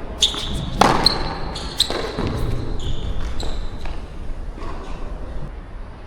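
Tennis ball struck by rackets and bouncing during a rally: two sharp hits about a second apart, then lighter taps, with short high squeaks of shoes on the court. A steady low rumble of wind on the microphone runs underneath.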